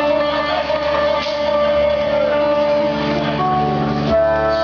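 Live Greek dance music from a band with plucked string instruments playing held notes.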